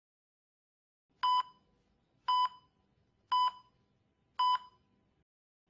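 Electronic countdown beeps from a video countdown animation: four short, identical beeps at one steady pitch, evenly spaced about one second apart, starting about a second in.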